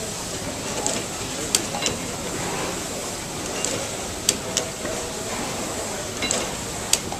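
Replica Otto-Langen atmospheric free-piston gas engine running. It gives a steady mechanical clatter, with a group of sharp clacks about every two and a half to three seconds, three times.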